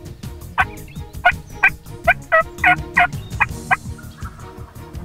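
Wild turkey yelping: a run of about nine short, sharp calls, evenly spaced over about three seconds.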